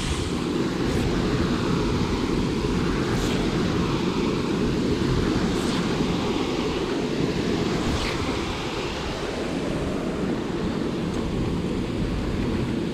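Steady rush of fast, churning canal water pouring below, mixed with wind buffeting the microphone.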